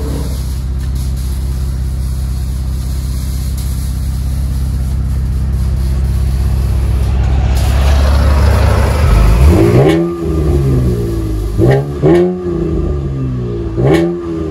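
2012 Chevrolet Camaro's 3.6-litre V6 idling steadily through a dual exhaust with Flowmaster 40 Series mufflers, heard at the tailpipe. About two-thirds through it is revved in four quick blips, each rising and falling in pitch.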